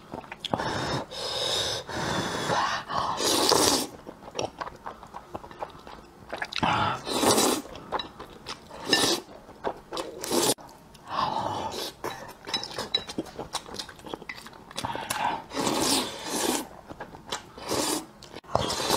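A person slurping thick, sauce-coated spicy noodles off chopsticks and chewing them, in a series of loud slurps about half a second to a second long with quieter chewing between.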